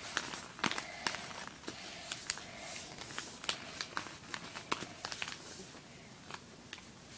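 A sheet of lined notebook paper being folded and creased by hand: crinkling with sharp crackles, thinning out over the last two seconds.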